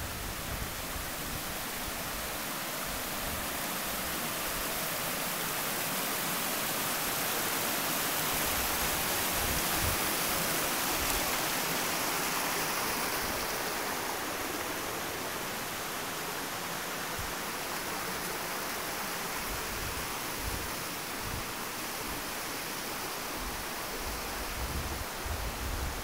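Steady rushing of a rocky stream cascading over boulders, an even hiss that swells a little around the middle and eases again, with a few low bumps near the end.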